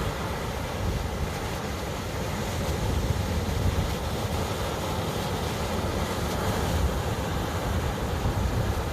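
Ocean surf washing steadily, mixed with wind rumbling on the microphone.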